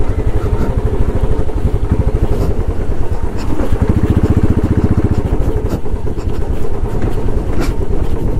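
Motorcycle engine running steadily at low revs under way, a rapid even train of firing pulses, with air rushing past the microphone.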